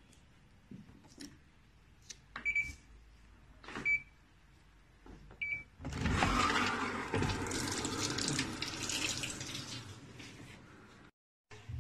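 Control-panel buttons beeping three times, then water rushing loudly into the tub of a Panasonic top-loading washing machine for about five seconds, cutting off suddenly near the end.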